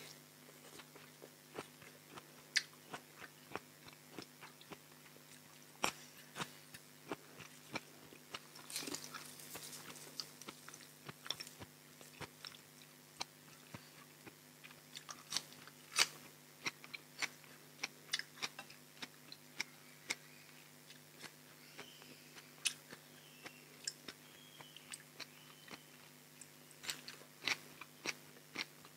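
Close-up mouth sounds of eating raw-shrimp koi salad with fresh leafy greens: chewing with many short, crisp crunches and wet clicks at an uneven pace, a denser run of crunching about a third of the way in.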